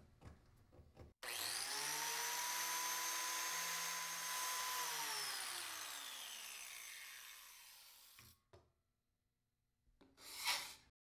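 Biscuit joiner switched on about a second in, its motor running with a steady high whine while cutting a slot for a No. 20 biscuit in mitered mahogany frame stock, then switched off and winding down, falling in pitch until it stops. A short scraping sound comes near the end.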